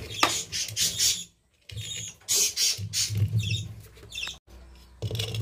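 Ceiling fan motor running in reverse: a low hum with creaking and scratchy rubbing noises, dropping out briefly twice.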